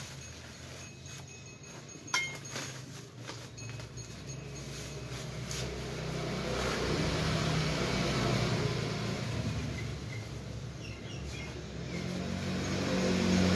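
A passing motor vehicle's engine hum that swells about midway, eases off, and swells again near the end. Under it, crinkling and clicks of clear plastic bags being handled.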